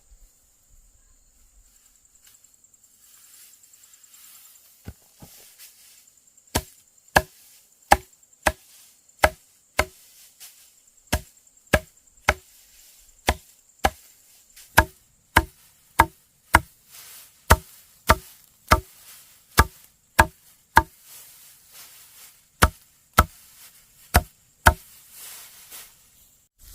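A blade chopping with sharp, evenly paced strikes, about two a second with a few short pauses, each strike ringing briefly.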